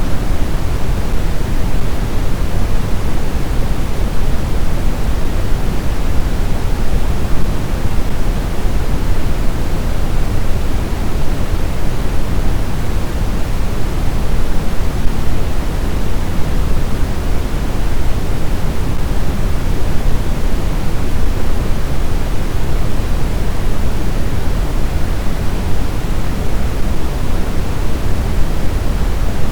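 Steady pink-type noise, an even hiss weighted toward the low end, unchanging throughout: a sleep-aid noise track.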